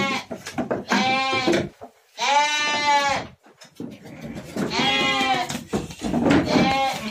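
Batur sheep bleating repeatedly: about five bleats, each under a second long and slightly wavering.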